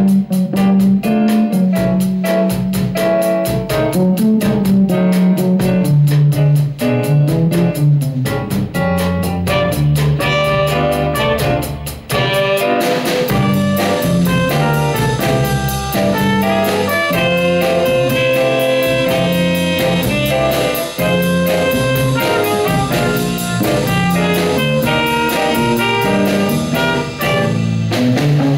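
Small jazz combo playing, with the electric bass guitar line prominent over drum kit cymbals and piano. About halfway through, trumpet and alto saxophone come in with held melody notes.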